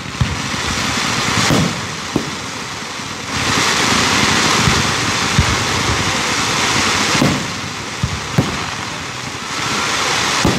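Fireworks going off: several sharp bangs, with a loud, steady hissing rush of spark fountains. The hiss starts about three seconds in and lasts some four seconds, then comes back near the end.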